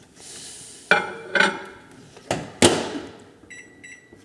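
A plate set into a built-in microwave oven and its door shut, making a few sharp clacks and knocks. Near the end come two short, identical beeps from the keypad as it is set to run.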